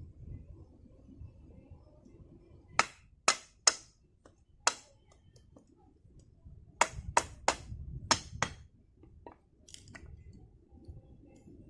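A series of about ten sharp snaps in two bunches, four then six, over a faint low rumble.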